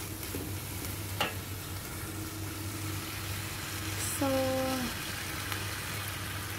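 Bean sprouts, minced fish and spring onion sizzling in a wok as a metal spatula stirs and tosses them, with a sharp click a little over a second in and a brief pitched hum about four seconds in.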